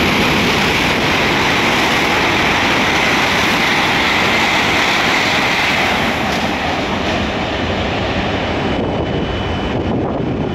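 E7/W7 series Shinkansen running through the station at speed without stopping: a loud rushing of air and wheels that eases about six seconds in as the train pulls away, the high end dropping off near the end.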